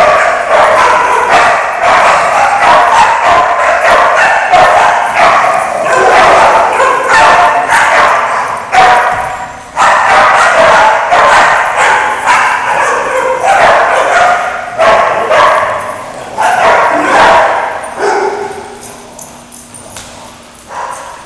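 Dogs barking and yipping at play, loud, rapid and overlapping, easing off and growing quieter near the end.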